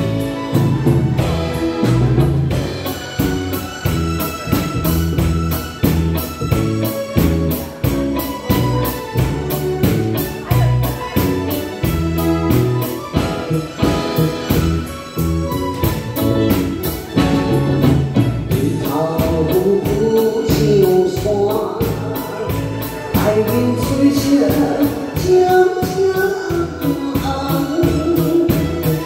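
Live band playing a song's instrumental introduction: drum kit, electric guitar and keyboard over a steady beat, with a lead melody line entering about two-thirds of the way through.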